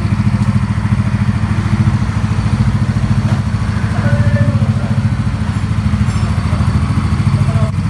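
Freshly rebuilt motorcycle engine idling steadily, its crankshaft newly reinstalled in rejoined crankcase halves, with an even run of firing pulses.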